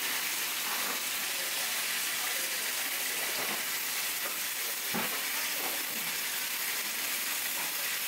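Steady sizzling hiss of food frying in the kitchen, with a couple of faint knocks around the middle.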